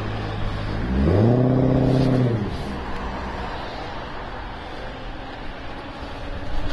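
A passing car's engine speeds up, its pitch rising about a second in, holding briefly, then falling away, over steady wind noise on the microphone.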